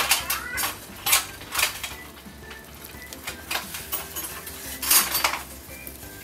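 Kitchen utensils clinking and scraping against dishes in about six short strokes, over faint background music.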